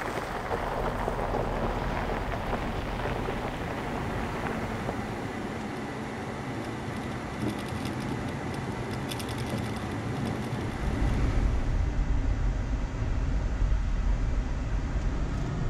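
2006 Subaru Forester SG driving, with steady road and tyre noise. About eleven seconds in, a deeper rumble comes in louder.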